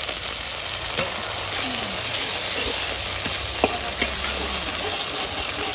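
Freshly added wet cumin and coriander paste sizzling in hot oil in a metal wok while a metal spatula stirs it, with a few sharp clicks of the spatula against the pan.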